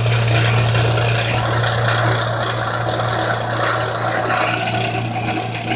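Electric garage unit heater running: its fan motor hums steadily under a rush of air, with a light rattle that comes from the heater's frame. The fan blade is nicked, and the owner suspects it runs a little off balance.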